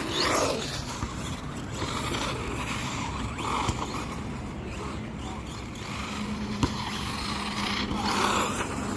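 Team Associated DR10 radio-controlled car being driven, its electric motor whining up in three short bursts over a steady background of running noise.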